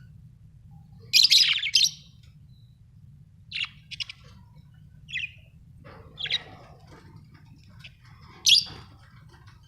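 Budgerigars giving short chirps and squawks every second or two, the loudest a burst just over a second in and another sharp call near the end, over a faint steady low hum.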